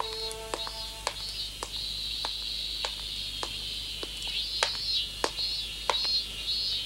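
Insects chirping in a steady repeating pattern, with evenly paced footsteps on a path, a little under two steps a second, as someone walks up. A held music chord ends about half a second in.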